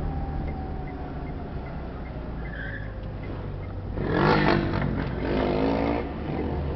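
Steady low engine and road hum heard from inside a moving vehicle. About four seconds in, a louder sound with a wavering pitch rises over it for about two seconds.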